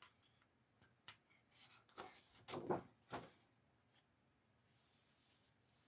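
Large sheets of scrapbook paper being handled and turned over: a few soft clicks, then a brief rustle and flap about two and a half seconds in. Faint overall.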